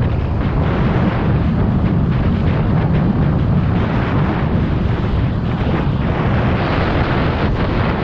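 Snowboard sliding fast over snow with a steady hiss, under heavy wind rumble buffeting the action-camera microphone.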